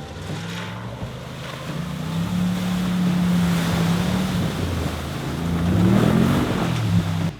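A 4WD's engine pulling under load through a river crossing, its pitch rising and then dropping back about six seconds in, over loud rushing and splashing water.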